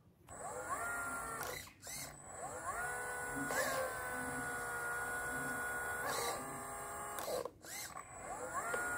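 Small electric motor drive of a homemade 1/14-scale RC excavator whining as the arm and bucket work. The whine starts about four times, each time rising in pitch as it spins up, holding steady, then cutting out briefly.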